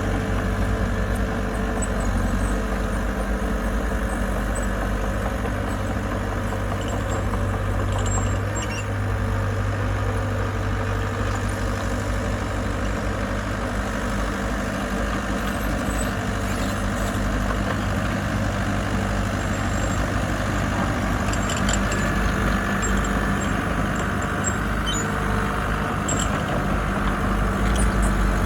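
Engine of heavy construction equipment running steadily with a low, even drone.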